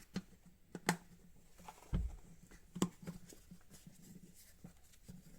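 Scattered light clicks and knocks of a plastic headlight-bulb cover being handled and fitted over the back of a motorcycle headlight, one with a dull thump about two seconds in.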